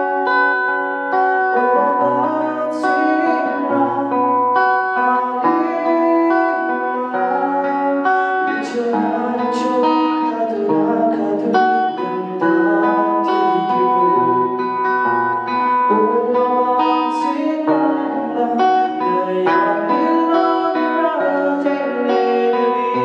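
A man singing with long held notes while strumming a Yamaha acoustic guitar.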